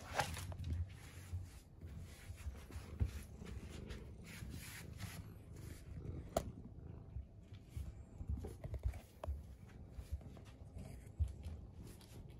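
Faint scattered clicks, scrapes and soft thumps from a cat moving about on hard floors in a clear plastic Elizabethan collar, the collar knocking against furniture and walls. A sharper click stands out at the start and again about six seconds in.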